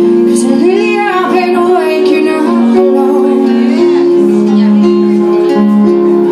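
Live acoustic band music: a woman sings over a picked acoustic guitar, with long steady held notes underneath. The voice drops out about four seconds in, leaving the instruments playing.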